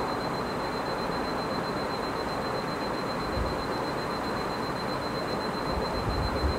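Steady background hiss with a thin, constant high whine, and a couple of soft low thumps about halfway through and near the end.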